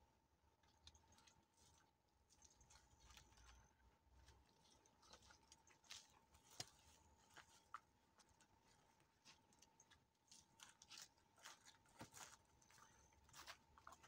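Near silence: faint outdoor room tone with scattered soft ticks and a faint steady tone.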